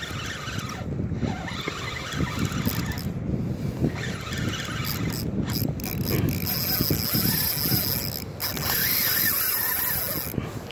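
Spinning reel's drag clicking rapidly as a hooked chinook salmon pulls line off against it while the reel is worked, with a high-pitched whine joining in over the second half.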